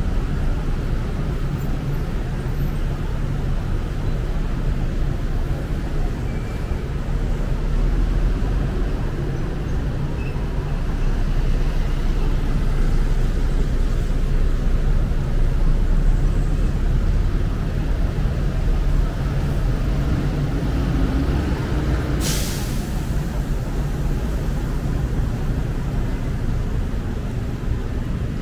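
City street traffic on wet roads: cars and SUVs idling and passing, a steady low rumble. A short, sharp hiss cuts through about three-quarters of the way in.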